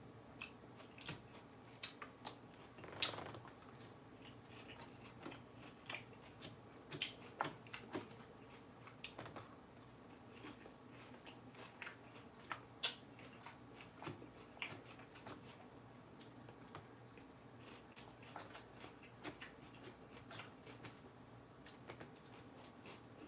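Faint close-up chewing of crunchy lettuce: irregular crisp crunches and mouth clicks, a few a second, the loudest crunch about three seconds in.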